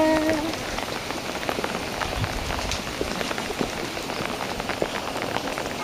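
Rain falling steadily, with many separate drop ticks among the even patter. A held sung note fades out in the first half second.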